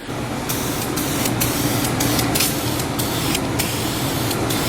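Aerosol can of Krylon Fusion spray paint for plastic being sprayed in a series of short hissing bursts, over a steady low hum.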